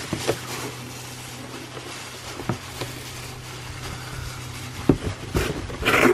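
Hands rummaging in a cardboard box around a plastic-bagged figure: scattered light knocks and rustles, then a louder burst of rustling near the end, over a steady low hum.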